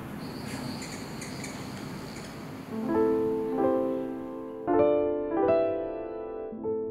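A steady hiss with a thin high tone for about the first three seconds, then slow piano notes and chords, each struck and left to ring and fade.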